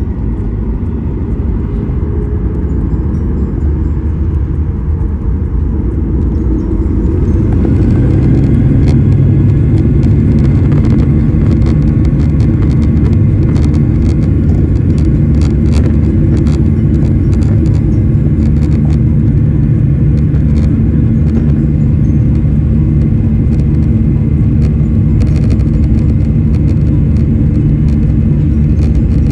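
Airliner cabin noise: a loud, steady low rumble of the jet engines, growing louder about seven seconds in and then holding steady.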